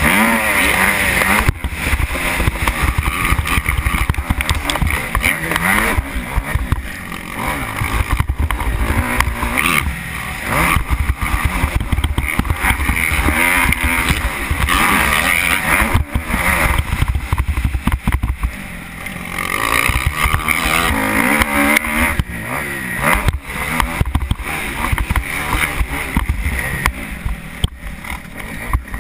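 Kawasaki KX250F four-stroke motocross engine heard from the rider's helmet, revving hard up and down through the gears, with brief dips each time the throttle is rolled off.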